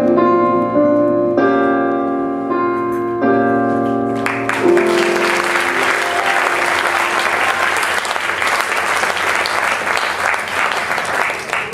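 Piano playing the last sustained chords of a slow song. About four seconds in, an audience breaks into applause that carries on to the end.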